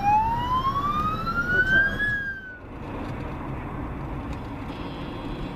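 Ambulance siren wailing, its pitch rising slowly over about two seconds before it cuts off abruptly. It gives way to a steady hum of car engine and road noise.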